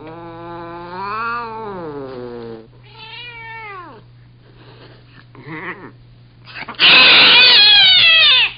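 Two cats in an angry standoff, trading long, wavering yowls that rise and fall in pitch. A much louder, harsh screech breaks out about seven seconds in.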